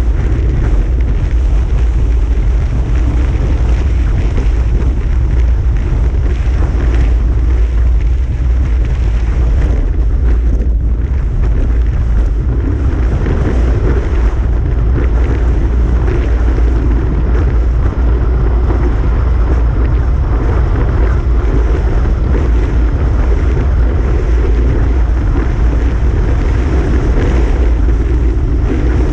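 Loud, steady wind rumble on the microphone of a bike-mounted camera as a road bike descends at speed.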